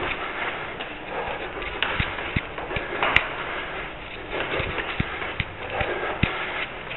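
A runner's footsteps climbing a stairwell: quick, irregular footfalls on the steps, about one or two a second, over a steady rushing noise.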